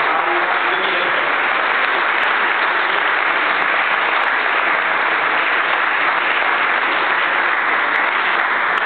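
Audience applauding steadily, a dense and even clapping.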